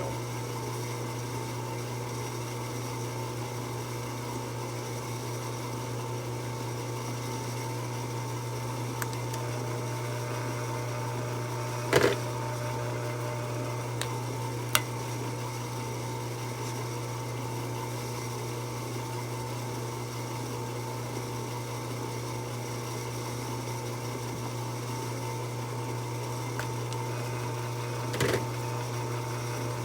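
Drill press motor running steadily, spinning a roll crimper, with a few brief knocks, the loudest about twelve seconds in and another near the end.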